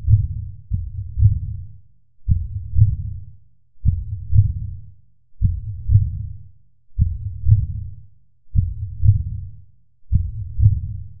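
A slow, deep heartbeat-like pulse: a double thump about every one and a half seconds, each pair fading before the next.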